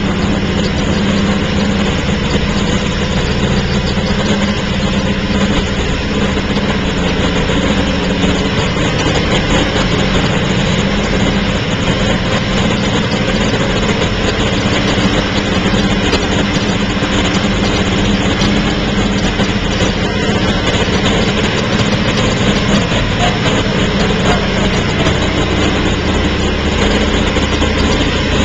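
Porsche 917's air-cooled flat-twelve racing engine running steadily at idle, on its first run in thirty years.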